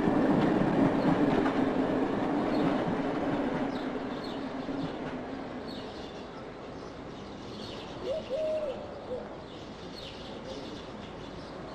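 Passenger train running past, its rumble and steady hum fading away over the first few seconds. After that, a quieter outdoor background with small birds chirping and a short call about eight seconds in.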